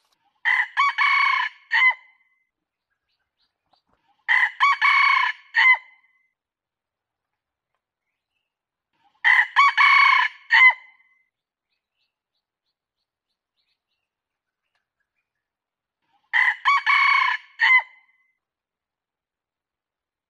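Red junglefowl rooster crowing four times, several seconds apart. Each crow is short, about a second and a half, broken into a few clipped notes and ending in a separate short final note.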